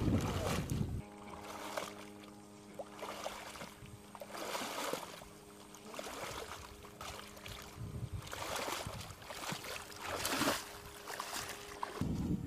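Boots wading and swishing through tall reeds and shallow water, in irregular bursts every couple of seconds, over a steady faint hum. Wind buffets the microphone at the start and again near the end.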